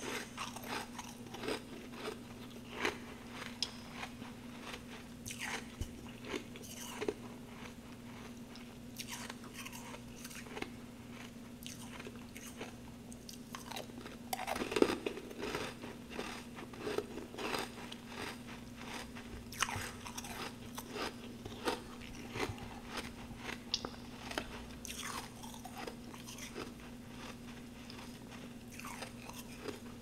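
A person chewing and crunching humidifier frost snowballs: a continual run of sharp, crisp crunches, loudest about halfway through, over a steady low hum. The frost is wet rather than dry and squeaky.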